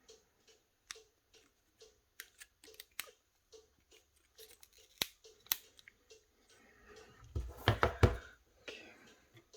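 Small sharp clicks and taps of tools and parts being handled while a smartphone is taken apart. A louder stretch of crackling, rustling handling noise with a few dull knocks comes about seven to eight seconds in.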